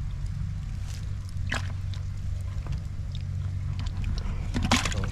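Steady low wind rumble on the microphone, with a few brief rustles and knocks from a tilapia being handled over a plastic bucket, the loudest cluster near the end.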